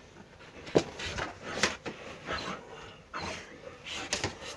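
A Samoyed dog in a seizure brought on by a brain tumour, moving while held: irregular knocks, the sharpest about a second in and again near the end, over rustling.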